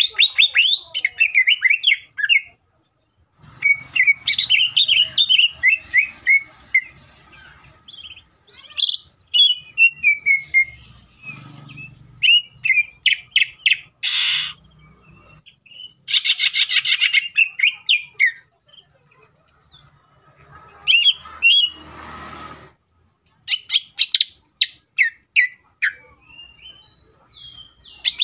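Male cucak ijo (greater green leafbird) singing loudly in rapid runs of varied chirps, quick falling trills and fast clicking notes, broken by short pauses.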